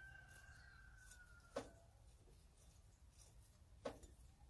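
Two short, sharp clicks about two seconds apart as hand-fitted bolts and tools meet the power steering pump bracket, in an otherwise near-quiet engine bay. A faint thin tone fades out in the first second and a half.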